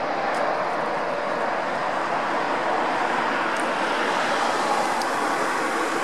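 Boeing 737NG's CFM56 jet engines running on landing approach as the airliner passes low overhead: a steady, even rushing noise that holds its level throughout.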